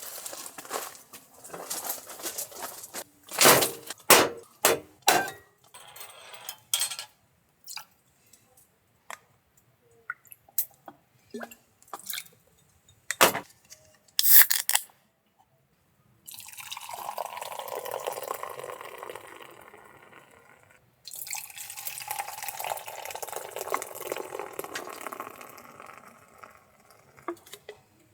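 Liquid being poured, in two steady pours of several seconds each that start and stop abruptly, after a series of short clicks and knocks.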